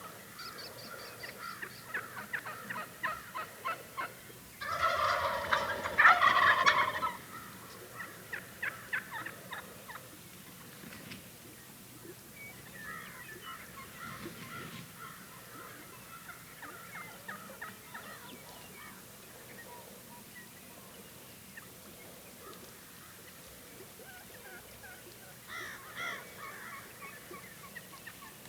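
Wild Merriam's turkey gobblers gobbling again and again. The loudest, closest gobbling comes about five seconds in, with fainter gobbles in between and one more near the end.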